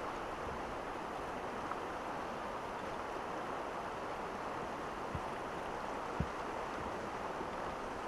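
Steady rush of a shallow river flowing fast over stones, with two short dull knocks about five and six seconds in.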